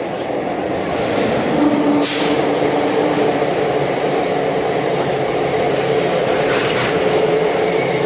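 Train running at a railway platform: a steady rumble of wheels and engine, with a brief sharp hiss about two seconds in.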